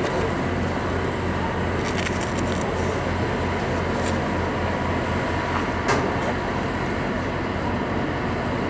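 Mt Washington Cog Railway diesel locomotive running steadily with a low hum as it moves its passenger coach along the rack track. A few sharp clicks come around two seconds in, and one louder knock about six seconds in.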